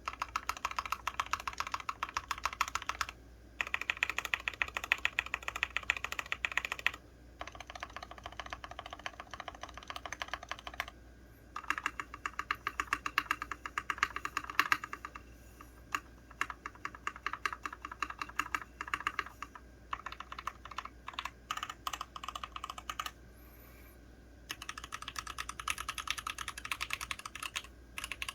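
Typing on a KBDfans Endless-80 mechanical keyboard with an aluminium plate, Everglide Aqua King V3 linear switches (67 g) and doubleshot ABS keycaps. Fast key strikes come in runs broken by several brief pauses.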